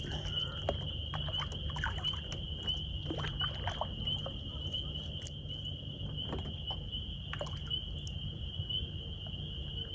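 Kayak paddle working the water, with small splashes, drips and light knocks, over a low wind rumble on the microphone. A steady high-pitched whine sits behind it.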